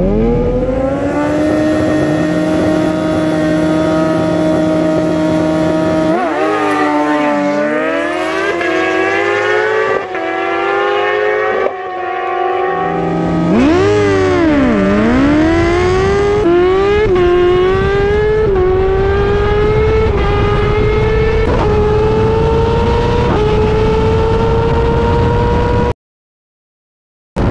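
Sport motorcycle engine held at high revs on the start line for about six seconds, then launching hard and accelerating through the gears, its pitch climbing and dropping back at each upshift. The sound cuts off abruptly near the end.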